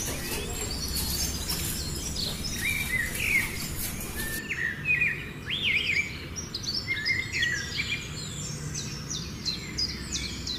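Several birds chirping and singing in quick, repeated short calls over a steady low rumble.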